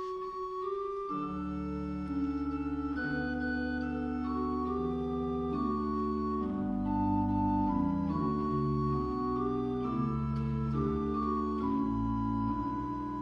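Church pipe organ playing slow, held chords. A single note sounds at first, then full chords with deep pedal bass come in about a second in.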